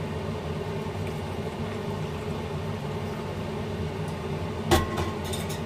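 Cold water pouring from a stainless-steel kettle and pot onto cabbage leaves in a plastic bowl, a steady pour, with one sharp metallic clink near the end.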